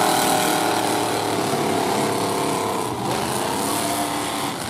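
Several demolition derby pickup truck engines revving, their pitch rising and falling as the trucks drive and ram each other.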